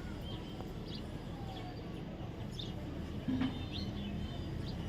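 Short, faint chirps from a baby parrot, scattered about once a second, over a steady low rumble.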